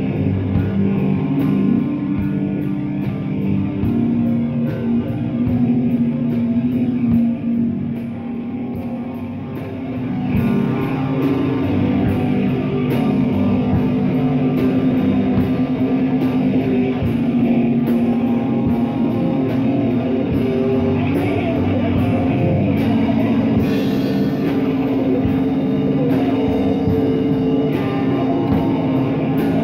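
Live rock band playing: drum kit with steady cymbal strokes and electric guitars. The band eases off briefly, then comes back in at full volume about ten seconds in.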